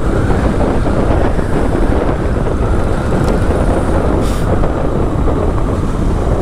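Steady rumble of a motorcycle on the move: engine and road noise mixed with wind buffeting on the rider's microphone.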